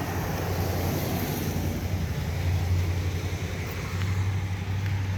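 A steady low mechanical hum over a wash of outdoor background noise.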